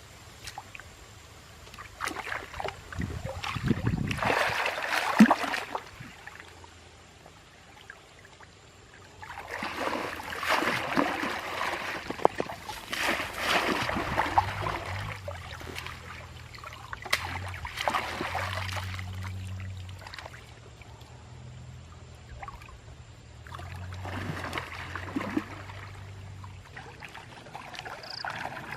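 Water splashing and trickling in uneven bursts, as a fishing net and hands work through shallow water.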